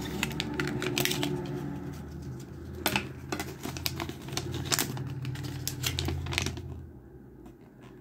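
A folded paper Zippo guarantee and instruction leaflet being handled and unfolded: crinkling paper with sharp crackles, settling down about seven seconds in. A low hum runs underneath.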